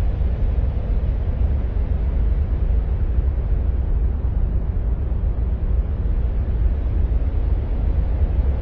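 Steady, deep rumbling noise presented as the sound of Mars, heaviest in the bass and thinning toward the treble, with no distinct events.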